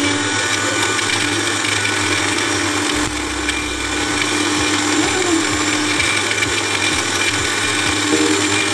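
Electric countertop blender grinding dry spices for a baharat spice mix, its motor running steadily at full speed with a constant whine.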